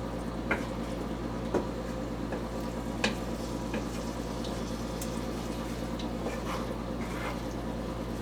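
Chicken fajita filling simmering in a pan of watery sriracha sauce, a steady bubbling sizzle with a few sharp clicks and pops scattered through it.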